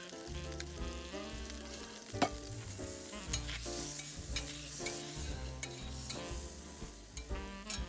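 Food sizzling on an iron griddle plate, with a few sharp clicks of a utensil against the metal, over background music.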